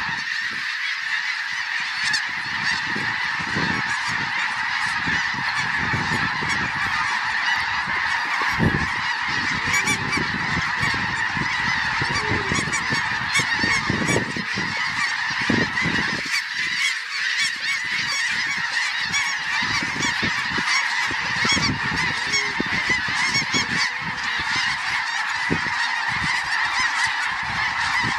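A large flock of snow geese calling without a break, a dense chorus of overlapping honks, with gusts of wind rumbling on the microphone underneath.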